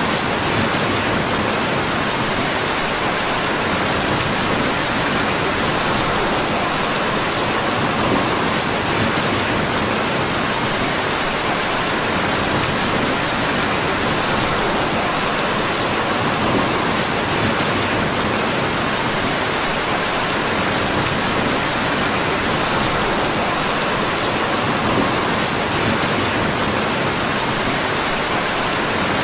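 Steady rain, a continuous even hiss with faint scattered ticks.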